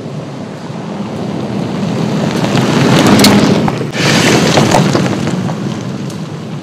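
A Toyota Land Cruiser with a 5.7-litre V8 drives by on a gravel road. Engine noise mixes with the crunch of tyres on gravel and the clicks of flung stones. The sound grows loudest as it passes, about three to four seconds in, then fades as it drives away.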